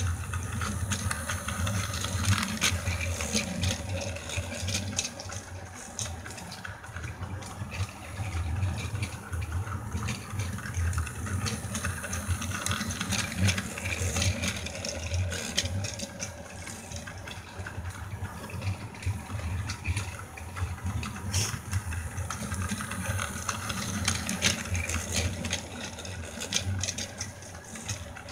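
Battery-powered plastic toy train running on plastic track: a steady motor hum with wheels rattling and clicking over the track joints.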